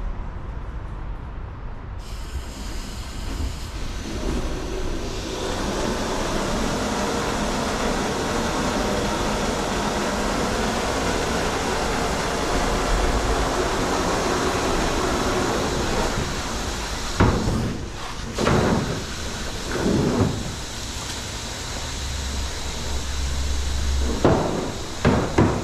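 Water from a hose running into a pressure washer's 200-gallon tank: a steady rush that builds up over the first few seconds. Several loud knocks and clunks come in the last third.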